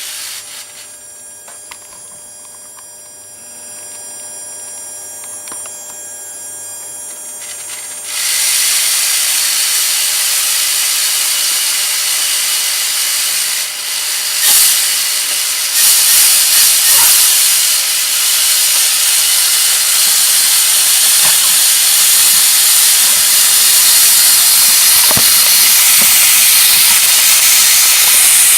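Electric-driven 3D-printed scale V8 engine in a 1/10 RC crawler running on its ESC while being set to idle. It starts with a faint high whine, then about eight seconds in jumps to a loud steady hissing rush that grows slightly louder.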